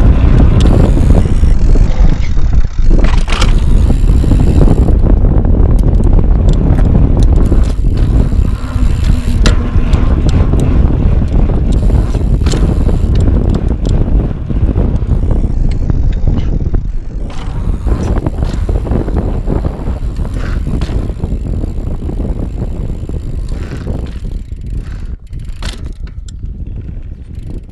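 Wind buffeting the microphone of a GoPro mounted on a Diamondback Mission 2 mountain bike while it is ridden over pavement, a loud steady rumble with occasional sharp knocks and rattles from the bike. The noise fades gradually over the second half.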